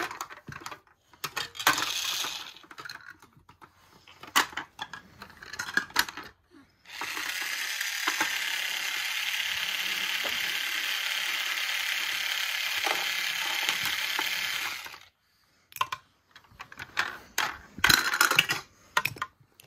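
Plastic toy parts clicking and rattling, then a steady whirring for about eight seconds, then more clicking.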